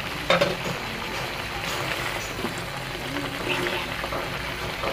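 A wooden spatula stirring chopped vegetables in a metal kadai, with a steady low sizzle as they cook on medium heat in the water they have let out. A single sharp knock of the spatula on the pan comes about a third of a second in.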